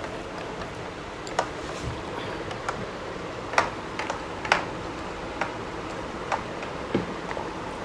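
Small sharp clicks and taps about once a second over a steady hiss: hands working rice on plastic plates and a steel shaker being handled and shaken.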